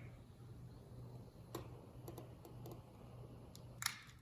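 A few faint, sharp clicks and light taps scattered through a quiet pause, the loudest near the end, over a low steady hum.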